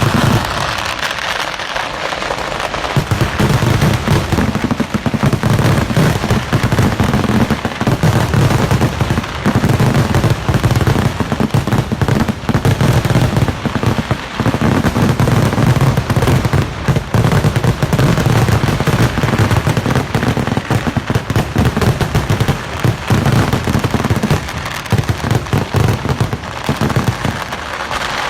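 Kerala temple-festival fireworks (vedikettu): firecrackers going off in a dense, unbroken barrage. The bangs and crackles come so fast they merge into a continuous rattle over a deep rumble, which fills in a couple of seconds in.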